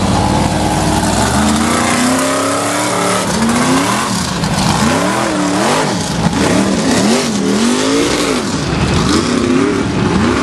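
Lifted mud-bog truck engine revving hard while churning through a mud pit. The pitch climbs steadily over the first few seconds, then swings up and down again and again as the throttle is worked, over a steady rush of noise.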